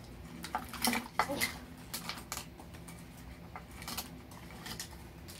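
Plastic wrappers crinkling and small plastic clicks as Mini Brands capsules and their tiny toy items are unwrapped and handled. The ticks come quick and irregular and are busiest about a second in.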